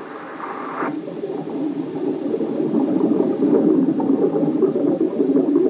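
Underwater bubbling and gurgling that grows louder over the first few seconds and then holds steady.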